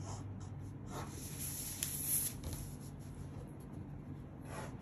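Soft rustling and rubbing of paper pattern pieces and a plastic ruler being shifted and lined up on a table, with a pen touching the paper, over a steady low room hum.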